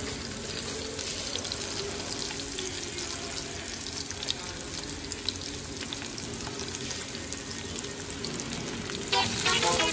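Onion and garlic frying in oil in a pan, a steady sizzling hiss with small crackles. A louder sound cuts in near the end.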